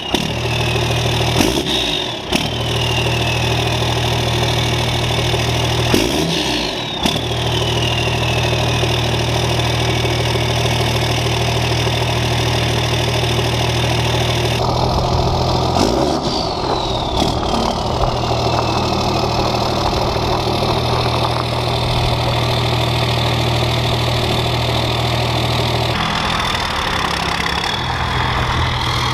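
12-valve Cummins 5.9 L turbo-diesel inline-six idling loud and deep through a 5-inch straight-pipe exhaust, revved about three times, the longest rev about halfway through. After each rev a high whistle falls away as the turbo spools down. Near the end the truck pulls away.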